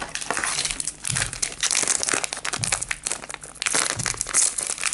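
Foil trading-card booster pack wrapper crinkling steadily as it is handled and worked open by hand, a dense run of crackles.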